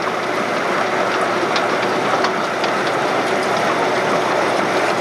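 Center-pivot irrigation system running: a steady hiss of water spray with light mechanical clicking.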